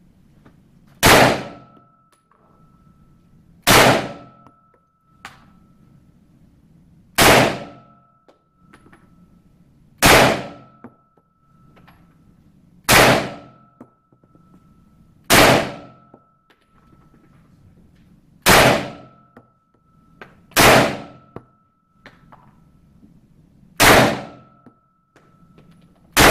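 A handgun fired ten times in slow, aimed single shots, about one every two to three seconds. Each report is sharp and loud, with a short decay and a thin high ring after it.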